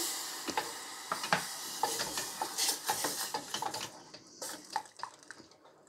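A wooden spoon stirring a butter-and-flour roux in a stainless steel saucepan as milk is added to make a white sauce. There are small scrapes and taps against the pan, and a sizzling hiss that fades away over the first few seconds.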